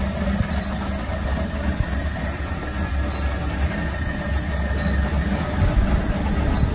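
Steady low rumble and whir of a running electric motor turning a belt-driven drum generator.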